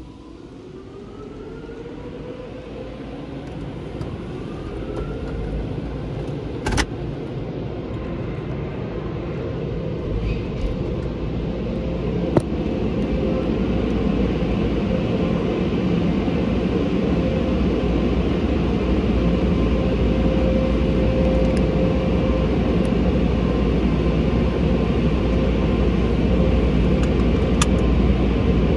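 Car wash air-dryer blowers spinning up: several rising whines in the first few seconds settle into a steady hum over a loud rushing of air that keeps getting louder. Two sharp clicks come through, about seven and twelve seconds in.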